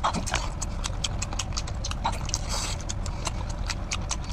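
Close-up wet mouth sounds of biting into and chewing a whole cooked octopus head: a quick run of sharp clicks and smacks, with a short hiss of slurping about halfway through, over a low steady hum.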